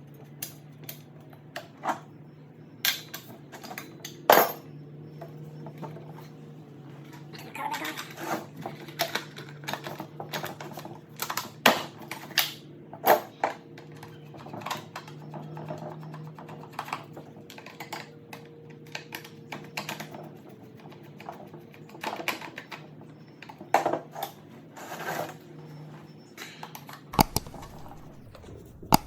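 Irregular clicks, taps and clinks of hand tools and plastic parts being worked on a chainsaw handle, a few sharper knocks among them, over a steady low hum that stops near the end.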